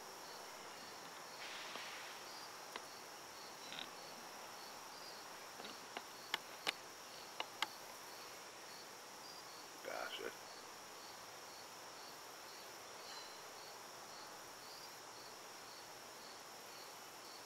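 Insects chirping steadily: a constant high trill with a slower, regular chirp about twice a second, joined by a few faint clicks and one short noise about ten seconds in.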